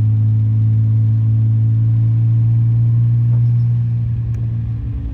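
1938 SS Jaguar 3½ Litre's straight-six engine pulling at a steady note while driving uphill. About four seconds in the note eases slightly and turns rougher.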